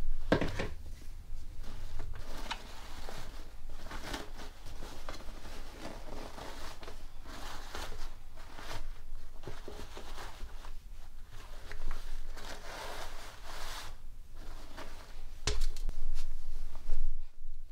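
Cloth rustling as a fabric bundle is untied and peeled back by hand from a lump of clay, in repeated short rustles. A single sharp knock comes near the end.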